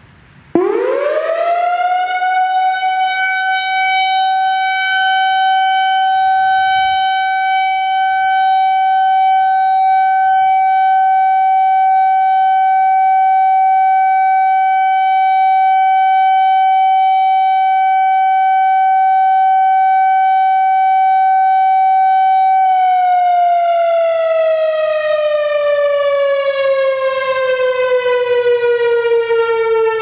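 Whelen WPS-4004 electronic siren, run by an analog controller, sounding its steady alert tone, loud. About half a second in it rises quickly to one steady pitch and holds there for about twenty seconds, then slowly slides down in pitch near the end.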